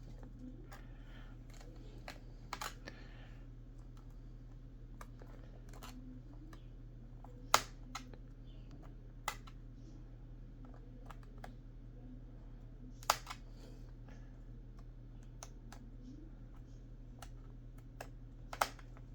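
Scattered light clicks and taps of small laptop screws and a screwdriver being handled on a hard work surface. Three sharper knocks stand out, about a third of the way in, about two-thirds in, and near the end. A low steady hum runs underneath.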